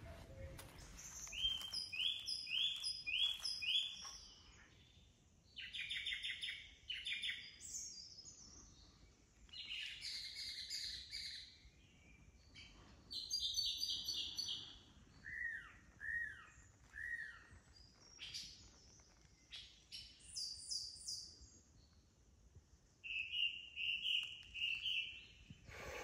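Several different songbirds singing in woodland, taking turns in short phrases a few seconds apart: runs of repeated high notes, a quick trill, and three downward-slurred whistles near the middle.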